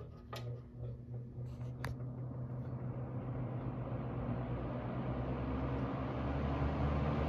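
Late-1960s Wards Signature 20-inch box fan made by Hunter/Robbins & Myers starting up after its thermostat dial is clicked back on. A few clicks come in the first two seconds, then the motor hum and air noise build steadily as the blades come up to speed.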